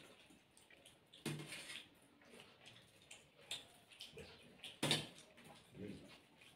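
Faint eating sounds at the table: hands working rice on steel plates, with scattered light clicks and a few short clinks of a steel serving spoon against steel dishes, the clearest about a second in and just before five seconds in.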